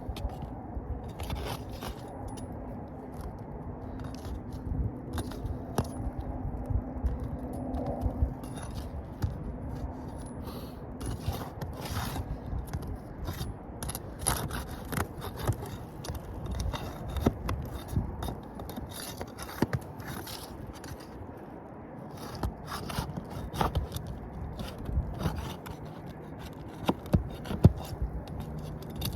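Asphalt roof shingles being pried up and unsealed by hand: repeated scraping with scattered sharp clicks and snaps as the sealed tabs break free and the nails are worked loose.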